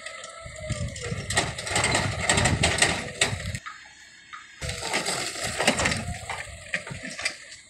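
Forklift moving across a gravel yard: a low rumble with dense metallic clattering and rattling, in two stretches of about three seconds each separated by a short lull.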